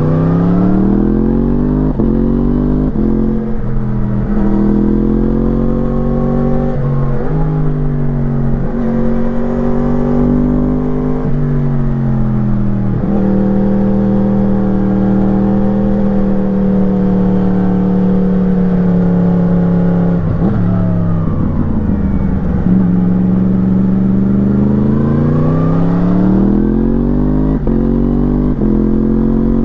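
Onboard sound of a 2017 Yamaha MT-10's crossplane inline-four through an Akrapovič slip-on exhaust, pulling hard on the throttle. The engine note climbs at the start and holds a steady pitch through the middle. It drops away about twenty seconds in, then climbs again.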